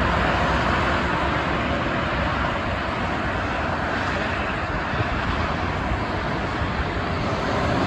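Steady traffic noise from a multi-lane expressway: the tyres and engines of many cars passing at highway speed blend into one even sound, with no single vehicle standing out.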